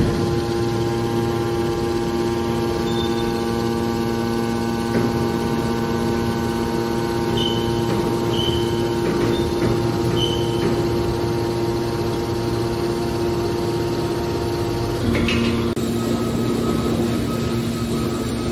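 Hydraulic metal baler's motor and pump running with a steady hum. There are a few short high squeaks around the middle. About three-quarters of the way through comes a clunk, and the hum changes pitch.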